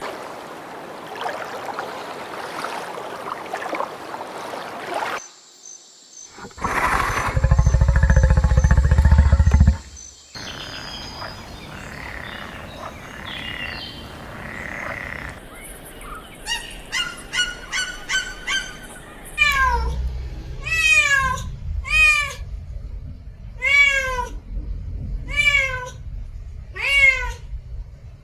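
A run of different animal calls that ends in a domestic cat meowing over and over, short meows about every second and a half.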